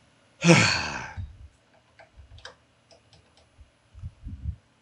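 A person's long, heavy sigh, followed by a few faint clicks and soft low thumps.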